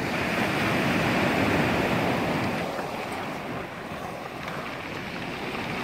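Sea surf breaking and washing up a pebble beach, with wind buffeting the microphone. The noise is strongest for the first couple of seconds, then eases.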